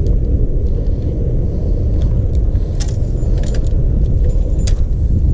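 Wind rumbling on the microphone, with a handful of light clicks and clinks of fishing rods and tackle being handled and carried, mostly in the second half.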